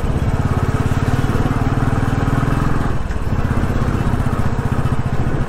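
Royal Enfield Classic motorcycle's single-cylinder engine running steadily under way, its exhaust pulses even, with a brief dip in the engine note about three seconds in.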